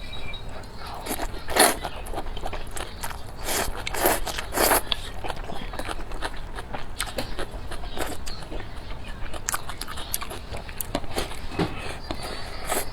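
Close-miked eating sounds: biting and chewing with many sharp crackling clicks. The loudest bites come a little under two seconds in and again around four to five seconds in.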